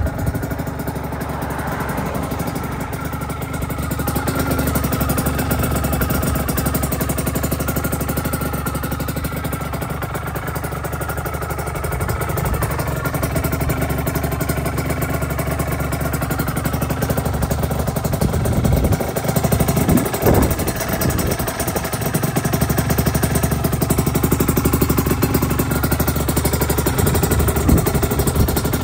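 Aprilia RS125's single-cylinder two-stroke engine idling, with a short uneven stretch about two-thirds of the way through.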